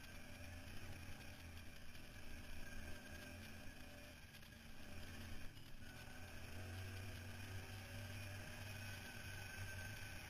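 ATV engine running steadily as the quad climbs a rough dirt trail, a low drone with rattle and wind noise over it. The engine eases off about four seconds in and pulls harder again from about six seconds.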